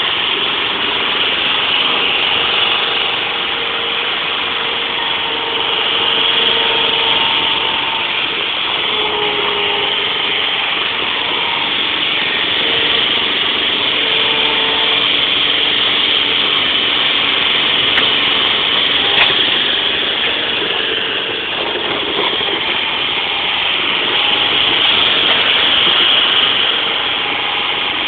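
Truck-mounted piggyback forklift's engine running steadily as the machine drives and lifts a pallet, with faint steady tones that come and go over the engine noise.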